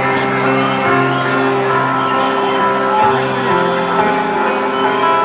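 Band music playing a song: held chords that change every second or so.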